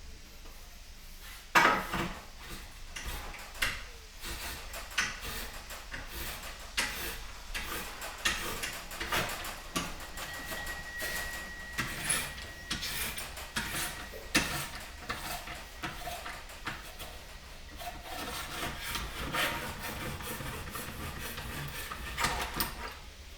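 Reamer being worked through the universal-joint cross bearing bore of a driveshaft yoke: metal scraping and clicking in irregular strokes, with a sharp knock about a second and a half in. The reaming removes the old stake marks so a new bearing cap can be pressed in.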